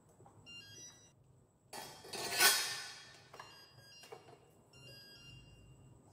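Steel tube frame and metal brackets being handled on a hoverboard: light metal clinks with a high ringing after them, and a louder metal scrape about two seconds in.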